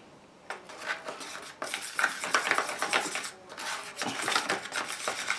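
A plastic spoon stirring and scraping a thick paste of acrylic paint and fine pumice gel in a plastic container. The strokes are irregular, starting about half a second in, with a brief pause a little past three seconds.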